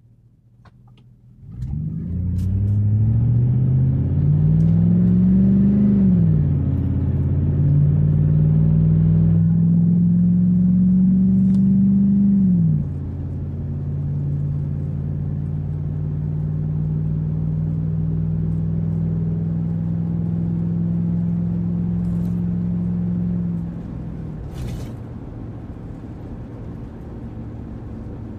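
2004 Chevrolet Avalanche Z71's V8 with a K&N cold air intake, accelerating hard from inside the cab: starting about a second and a half in, the engine note climbs, drops at an upshift, climbs again and drops at a second upshift. It then holds a steady cruise, and the level falls off when the throttle is eased with about five seconds left.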